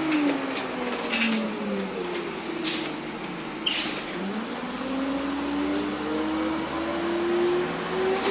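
1999 Nova LFS transit bus drivetrain heard from inside the bus: its whine drops in pitch as the bus slows, then climbs steadily as it picks up speed again. A steady rush of roof-mounted air-conditioning fans runs underneath, with a few short rattles and clunks from the bus interior.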